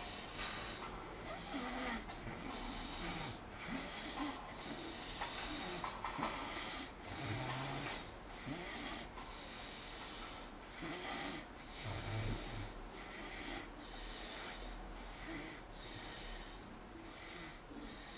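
A man snoring in deep sleep: breathy, hissing snores repeat every one to two seconds, a few of them with a low rumble.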